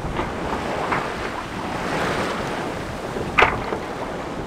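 Rushing sea water past a sailboat's hull, with wind buffeting the microphone; the rush swells about two seconds in, and a wave slaps sharply against the bow about three and a half seconds in.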